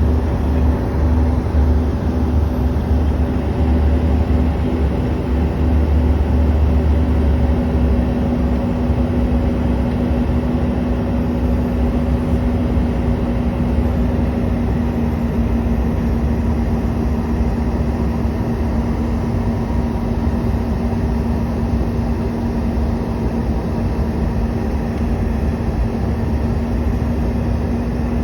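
Steady jet cabin noise of a CRJ200 regional jet: a continuous hum from its GE CF34 turbofans with a few steady tones over a broad rush. A deep rumble is strongest at first and eases about eight seconds in.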